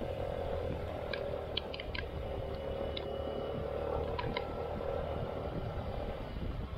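Vehicle engine running steadily while travelling, a continuous low hum, with a few short high ticks about one to four and a half seconds in.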